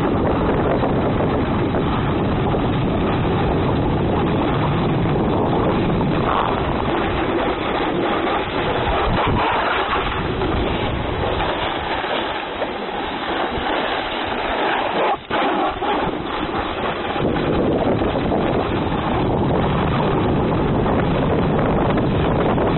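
Wind buffeting the microphone while moving down a groomed ski slope, with the rush of snow sliding underneath. The low buffeting eases for a few seconds about halfway through, then returns.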